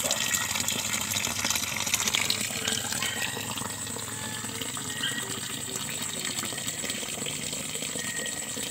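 Water pouring steadily from a hose in a thin stream and splashing into a tarpaulin-lined pit as it fills.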